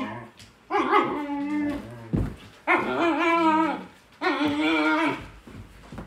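A Shepsky puppy (German shepherd–husky mix) vocalizing while pestering other dogs: three long, wavering whines of about a second each, one after another.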